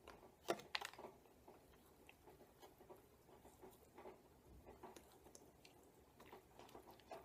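Near silence with faint, scattered clicks and rustles, one sharper click about half a second in, as a pinch of loose-leaf chewing tobacco is taken from its plastic pouch and packed into the cheek.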